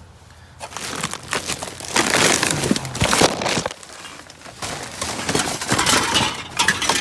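Rummaging through discarded electronics and cords in a dumpster: dense clattering, crinkling and knocking of junk being moved. It is loudest from about two seconds in, eases briefly, then starts again.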